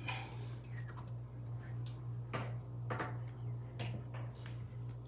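Light, scattered clicks and taps of pliers and small metal and rubber parts being pressed into a Delta faucet's valve body, over a steady low hum.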